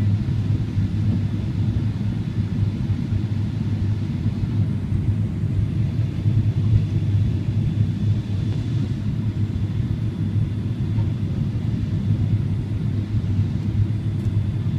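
Steady cabin noise inside a Boeing 777-300 descending on approach: a continuous low rumble of the engines and the airflow over the fuselage, heard from a window seat.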